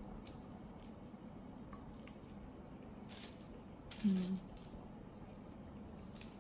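Quiet eating sounds: a mouthful of pasta being chewed, with soft wet mouth clicks and smacks, and a short closed-mouth "mm" hum about four seconds in.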